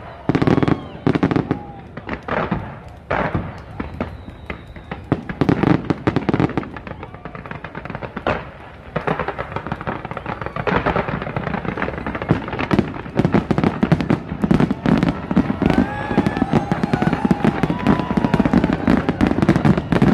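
Fireworks display: separate bangs of aerial shells at first, thickening about twelve seconds in into a dense, almost continuous crackle of bursts.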